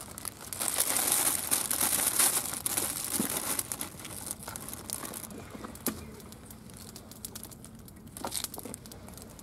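Plastic packaging crinkling and rustling as salad is taken out of it, busiest in the first few seconds, then fainter scattered rustles and clicks.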